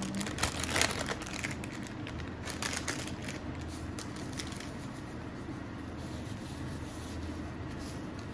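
Plastic spice packet crinkling and rustling as it is handled and shaken out over meat, a run of short crackles over the first few seconds that gives way to a steady low hum.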